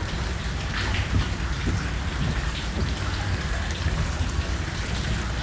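Steady heavy rain, with scattered drips landing close by and a low rumble beneath.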